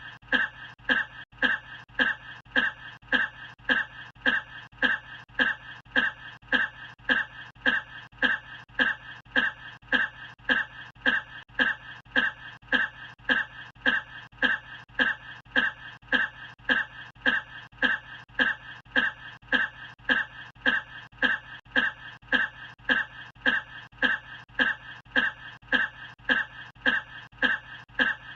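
One short human cough looped over and over at a fast, perfectly even rhythm, every repeat identical.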